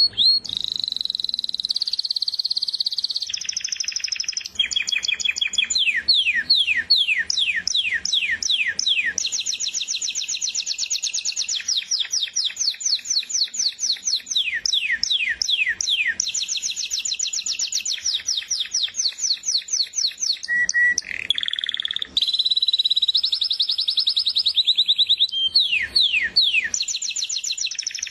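Domestic canary singing a long unbroken song: runs of rapid repeated trilled notes, each run switching to a new note type every one to three seconds, some notes sweeping down in pitch.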